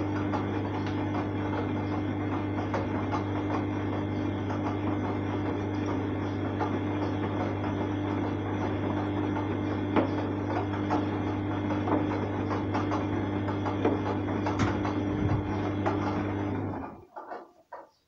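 Arçelik 3340 SJ front-loading washing machine tumbling a wet load in its drum during the wash: a steady motor hum with water and clothes sloshing and occasional small clicks. The hum stops about seventeen seconds in as the drum comes to rest.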